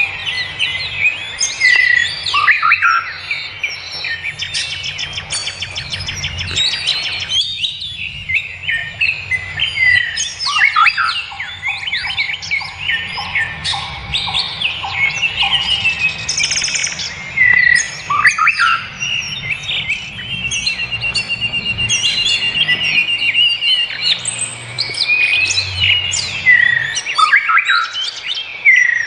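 Chorus of forest birds, several calling and singing over one another with chirps, whistled glides and trills. A fast, even trill runs for a few seconds past the middle.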